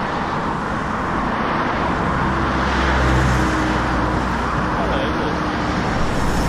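Road traffic passing close by: a car's engine and tyre noise swell to their loudest about three seconds in, then ease off.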